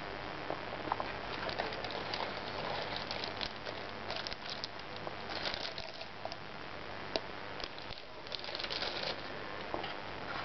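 Packaging being handled: crinkling plastic bags and rustling paper, with scattered light clicks and taps. The crinkling comes in short flurries, busiest around the middle and again later on.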